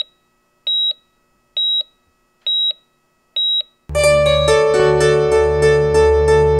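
Four short, high electronic beeps evenly spaced a little under a second apart, then about four seconds in loud electronic piano music begins with sustained chords.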